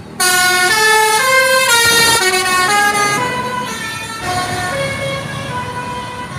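Bus 'telolet' horn: a multi-tone musical air horn playing a quick stepping melody, starting suddenly and loud, then going on a little quieter after about three seconds.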